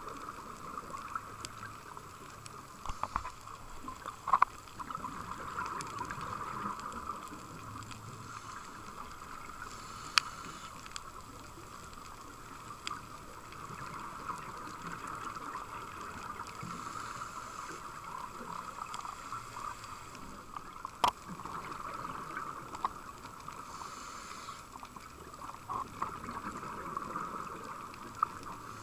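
Underwater sound of a scuba dive: the diver's regulator breathing and exhaled bubbles as a muffled, steady rushing noise that swells and eases every few seconds. A few sharp clicks stand out, the loudest about four seconds in and about 21 seconds in.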